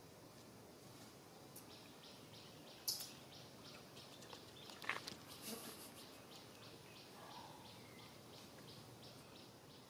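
Faint outdoor background with a high, thin chirping repeated about twice a second. Two sharp clicks stand out, about three and five seconds in.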